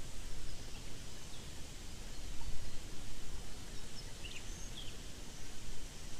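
Outdoor ambience: a low, fluctuating rumble with a few faint, short bird chirps about four to five seconds in.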